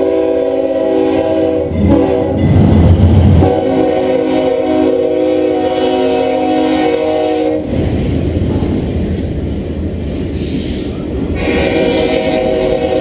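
A diesel freight train passes close by: a loud low rumble as the locomotive goes past, then autorack freight cars rolling by. Long, steady chord blasts of a train horn sound three times over it, the middle one lasting about four seconds.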